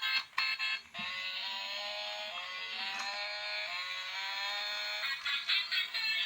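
Ben 10 toy car switched on, a few clicks and then its electronic sound chip playing a beeping tune of stepped notes. The tune turns into a choppier, pulsing electronic sound near the end.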